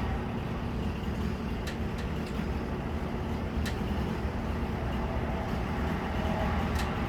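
Chainsaw running steadily under load, its bar cutting lengthwise through a walnut log in a homemade chainsaw mill, with a few short clicks over the top.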